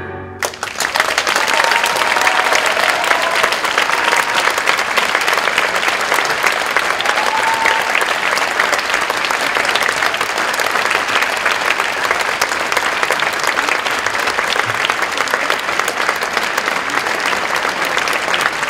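Audience applauding steadily in a theatre. The applause starts about half a second in, as the last note of the tango music dies away.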